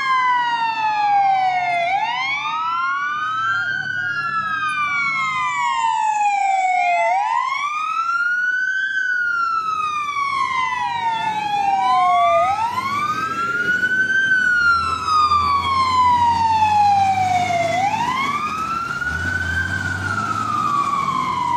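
Fire engines' sirens wailing, sweeping slowly up and down in pitch, with two sirens overlapping at first, as the trucks respond to an emergency call. A heavy truck's engine rumble grows as a fire engine passes close in the second half.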